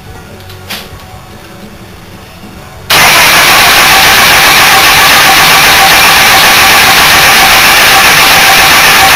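A Morris 1100's A-series four-cylinder engine. It turns over quietly with a single click just under a second in, then about three seconds in it catches and runs very loud and steady.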